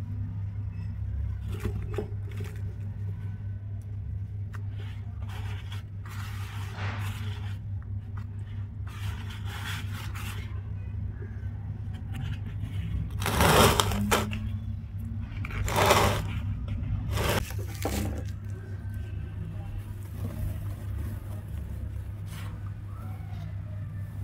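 Hands crumbling and pressing dry cement powder and chunks: gritty rustles that come and go, with three louder bursts about halfway through, over a steady low hum.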